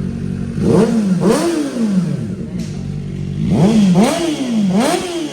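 Kawasaki ZX-4RR's 399 cc inline-four idling, then blipped through quick revs: two sharp rev blips about a second in, then three more in quick succession near the end, each rising fast and falling back toward idle.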